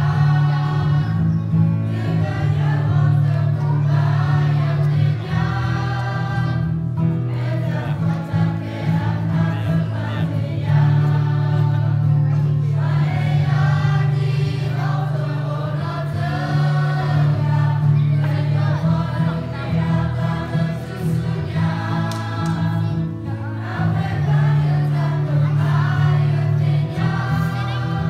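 Youth choir of children and teenagers singing together in phrases, with a steady low tone held underneath.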